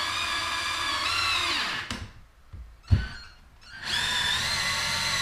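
Cordless drill running into a wooden 2x4 wall mount in two runs of about two seconds each, the first winding down about two seconds in, with a single sharp knock in the pause between them.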